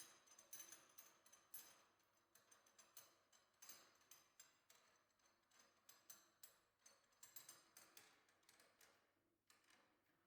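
Faint, irregular light clicks and taps, several a second, with short pauses between clusters.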